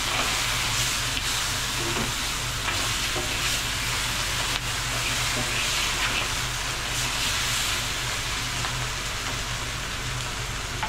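Crab with ginger and scallions sizzling as it is stir-fried in a hot wok: a steady frying hiss, with a few faint clinks and a steady low hum underneath.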